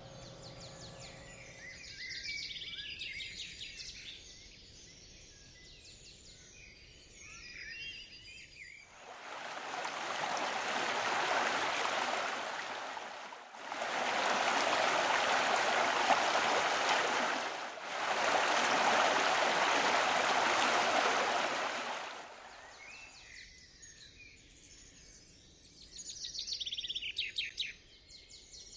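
Birds chirping and singing, with a loud steady rushing noise in the middle that lasts about thirteen seconds and breaks off twice briefly before the birdsong returns.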